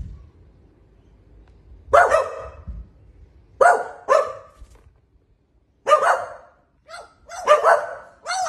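Dog-like barking: about seven short, sharp barks in uneven groups of one or two, with quiet gaps between them.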